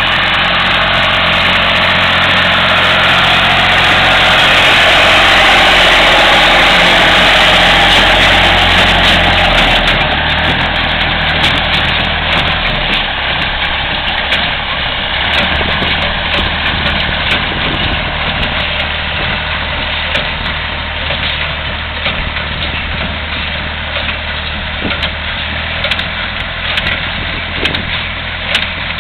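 Engine running steadily while a baler works. It is loudest for the first ten seconds or so; then the engine note drops slightly and irregular clicks and knocks come through over it.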